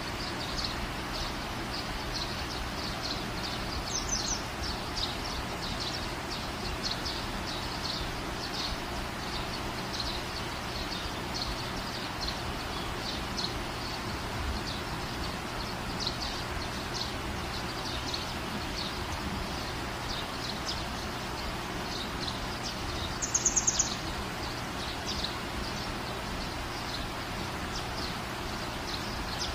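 Outdoor ambience: a steady hiss with short high chirps repeating a few times a second, and a louder quick trill of chirps about 23 seconds in.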